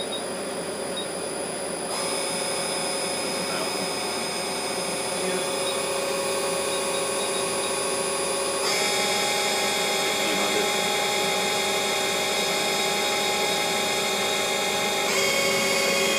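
Okuma LB-15II-W CNC lathe's spindle and hydraulic chuck spinning without cutting, a steady machine whine that jumps to a higher, louder pitch three times as the spindle speed is stepped up toward its 4500 RPM top speed.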